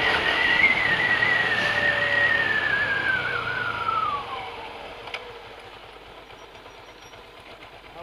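Motorcycle being ridden and slowing down: its whine falls steadily in pitch over about four seconds over a rush of wind, then the sound drops away as the bike rolls almost to a stop.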